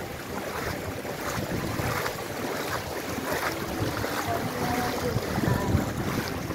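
Wind buffeting the microphone in gusts over a steady outdoor hiss, with a few faint brief tones in the middle.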